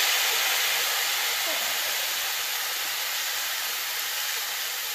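Green apple pieces sizzling in hot spiced oil in a pan, a steady sizzle that slowly dies down.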